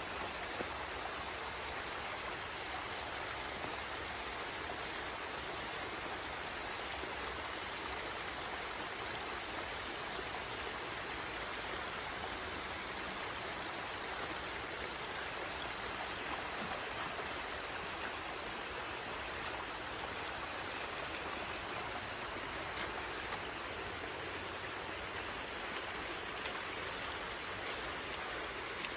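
Water of a small forest stream running steadily over rocks, a continuous even rush with no break.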